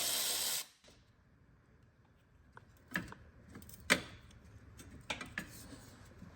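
A power tool, such as a drill or driver, runs steadily and cuts off abruptly under a second in, as the 10 mm bolts come out. Scattered light metallic clicks and taps of tools and parts follow, with the sharpest knock about four seconds in.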